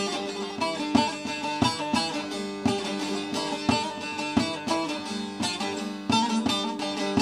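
Long-necked Turkish bağlama (saz) played with a plectrum: a fast, rhythmic instrumental passage of strummed melody notes, with a steady low note ringing underneath.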